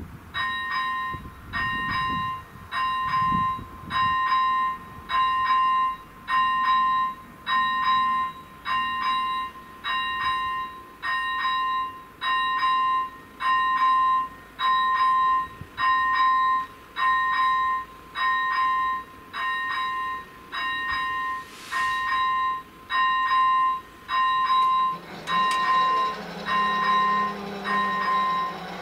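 Level-crossing warning bell of AŽD 71 crossing signals ringing, a high electronic ding about once a second, starting suddenly as the crossing activates. Near the end the rumble of an approaching train rises underneath.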